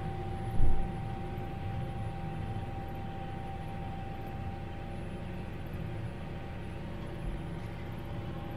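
Tractor engine running steadily under load while towing a snowmobile trail groomer, heard from inside the cab as a steady drone with a constant hum over it. A single low thump comes about half a second in.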